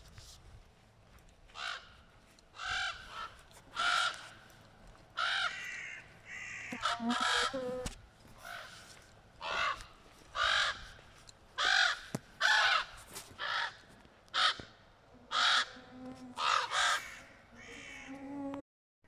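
Crows cawing: a run of loud, harsh caws at irregular intervals, about one every second. The sound cuts off abruptly near the end.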